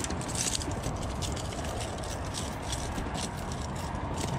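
A just-landed bluefish flopping on concrete, making quick, irregular slaps and taps several times a second, over a steady low rumble of wind and water.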